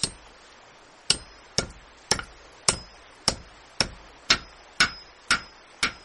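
Carpenter's hammer driving nails into wooden planks: about ten steady blows, roughly two a second, starting about a second in, some with a short metallic ring.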